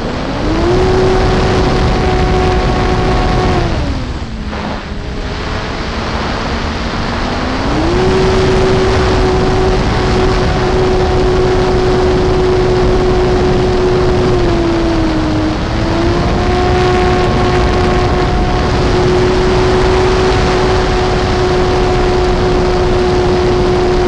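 ParkZone Corsair RC plane's electric motor and propeller heard from an onboard camera in flight: a steady whine over loud rushing air noise. The pitch rises just after the start, falls low when the throttle is eased about four seconds in, climbs back about seven seconds in, and dips briefly near fifteen seconds.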